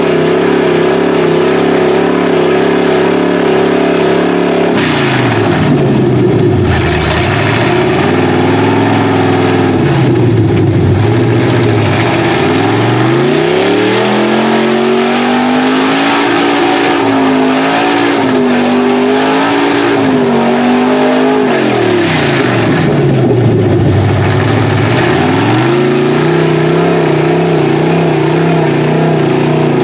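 Chevy mud truck's big-block V8 revving hard as its tires churn through deep mud, throwing mud and water. The engine note is steady at first, then dips and climbs several times about five seconds in, holds high and wavering through the middle, falls again, and settles back to a steady high rev near the end.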